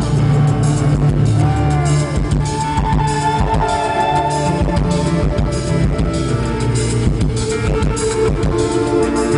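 Live band music heard from within an arena crowd: a steady drum-kit beat and bass under keyboard and guitar parts, with a few gliding tones in the first few seconds.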